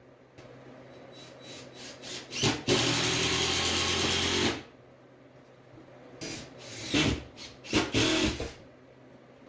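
Power drill driving screws into the wall: a few short bursts, a steady run of about two seconds, then more short bursts near the end.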